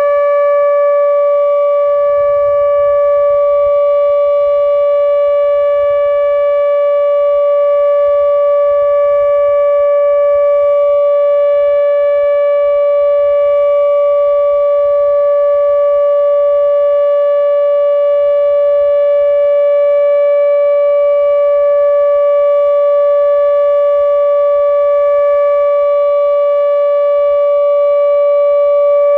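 ATI HPSS-32 electronic warning siren sounding the steady alert signal: one constant pitch with overtones that neither rises nor falls.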